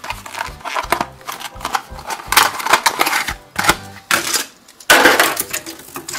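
Clear plastic blister packaging crackling and crinkling as it is pulled off its cardboard backing card and worked open to free a die-cast toy tractor. The sound is a run of irregular sharp cracks and rustles, with the loudest crackling burst about five seconds in.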